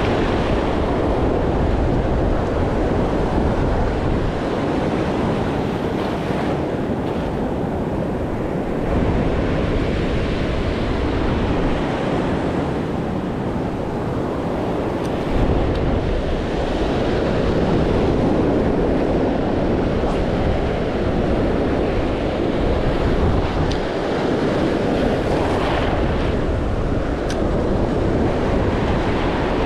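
Ocean surf breaking and washing in, rising and falling in waves, with wind buffeting the microphone.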